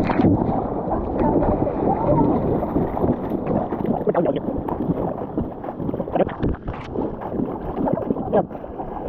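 Whitewater river rushing and splashing around an inflatable raft, with frequent short splashes and wind buffeting the action-camera microphone.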